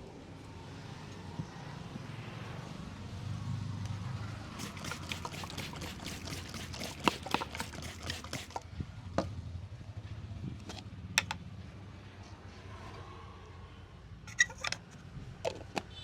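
Hands slapping and tapping during a head massage: a quick run of sharp taps, about five a second for four seconds, then a handful of single slaps and claps. A steady street hum sits underneath.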